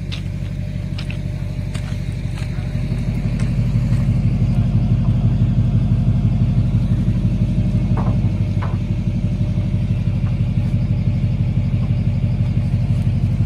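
Pickup truck engine running steadily with a deep, pulsing rumble, growing louder over the first few seconds and then holding.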